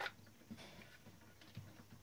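A few small clicks and ticks from hand work on a Klein Adler 2 typewriter's mechanism: one sharp click at the start, then fainter ticks about half a second in and near the end, over a steady low hum.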